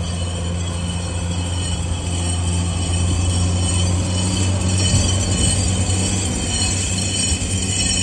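M29 Weasel tracked carrier driving past, its Studebaker six-cylinder flathead engine running steadily over the rattle of its steel tracks and road wheels. It is loudest about five seconds in, as it passes closest.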